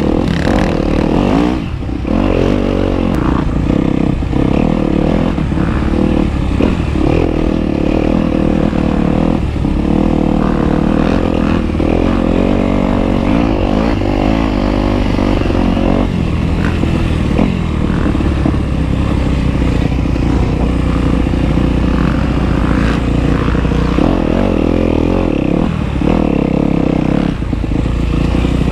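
Off-road vehicle engine running loud under constantly changing throttle, with knocks and rattles over rough trail ground.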